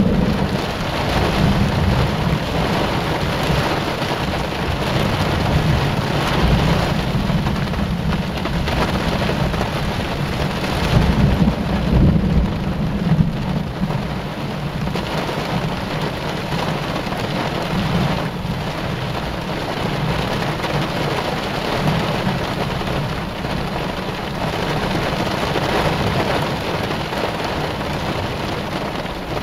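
Heavy rain falling on a car, with thunder rumbling low and long underneath. The rumble swells loudest around eleven to thirteen seconds in.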